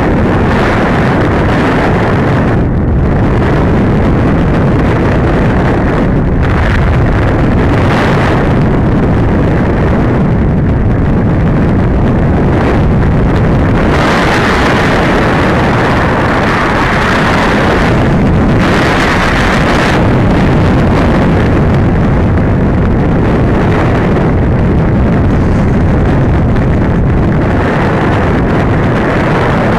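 Airflow rushing over the onboard camera's microphone on a gliding RC sailplane in flight: a loud, steady rush of wind noise that swells and eases now and then.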